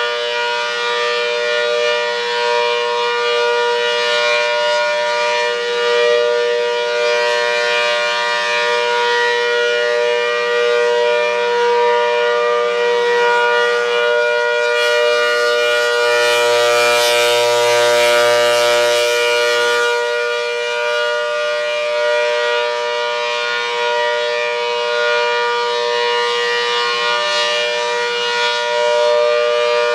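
ACA Hurricane 130, a 130 dB electromechanical tornado siren with 8/10 ports, sounding its steady alert signal for a simulated tornado warning: a loud, held chord with no rise or fall in pitch. For a few seconds around the middle it swells brighter and hissier.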